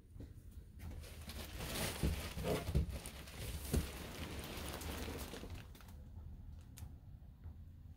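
Rustling and handling noise with several soft knocks and thumps, as the hinged bed platform of a travel trailer is lifted to open the storage underneath. It goes quieter near the end, with a few faint clicks.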